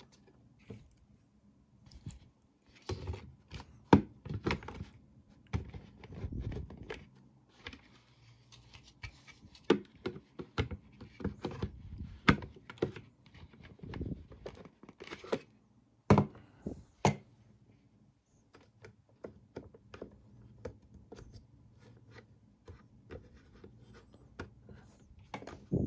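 Hard plastic parts of a Bodum burr coffee grinder being handled and fitted together: irregular clicks and knocks, a few sharper than the rest, as the clear bean hopper is set on the body and lifted off again.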